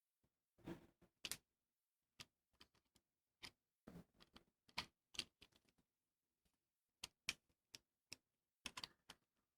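Irregular light clicks and taps of small hard plastic gear being handled, about a dozen sharp ticks with short pauses between them.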